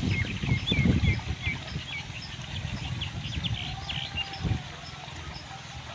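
A bird calling in a quick run of short chirps for the first few seconds, over low, uneven splashing from wading and handling in shallow paddy-field water.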